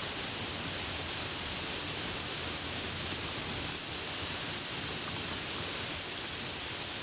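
Steady, even rain with a constant hiss, no thunder.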